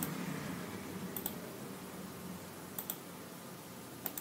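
Computer clicks, coming in quick pairs about a tenth of a second apart, four times, over faint room noise.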